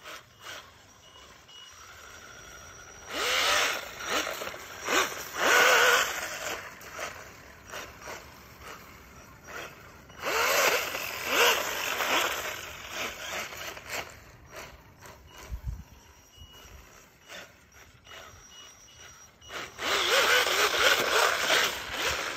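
Radio-controlled Arctic Cat model snowmobile running on a 3S LiPo battery, its electric motor and track whining up in three bursts of throttle over the snow, with quieter stretches between.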